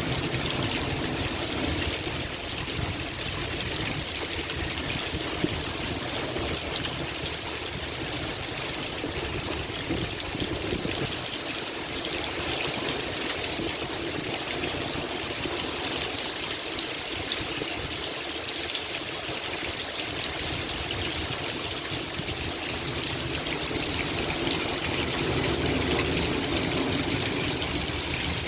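Heavy rain pouring steadily, with water running and trickling, and a low rumble of strong wind that comes and goes. It grows slightly louder near the end.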